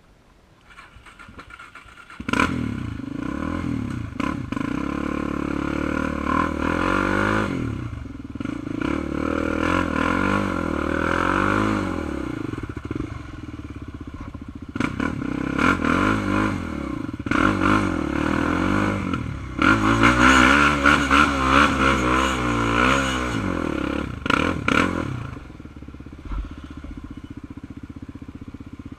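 Sport quad ATV's engine through an open aftermarket exhaust, revving up and down again and again as it is ridden along a trail. It starts quietly, comes in loud about two seconds in, is loudest about two thirds of the way through, and drops back near the end.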